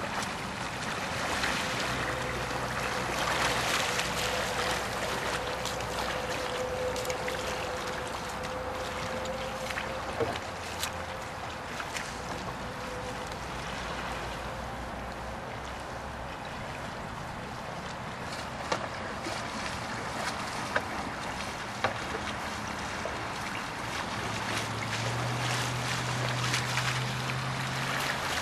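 Paddle strokes and water splashing around a C1 slalom canoe on a river, over a steady rush of moving water, louder in the first few seconds and again near the end. A few sharp knocks stand out along the way.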